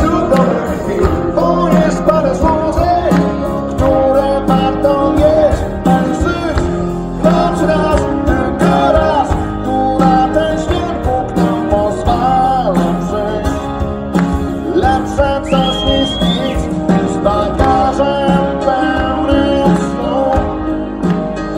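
Live acoustic rock performance: a male lead vocalist singing into a microphone over two acoustic guitars.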